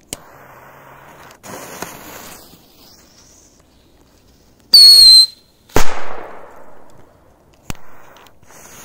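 Faint fuse hissing, then about five seconds in a small whistling 'mouse' firework gives a shrill whistle for half a second, dropping slightly in pitch, followed a moment later by one sharp firecracker bang that rings out and fades.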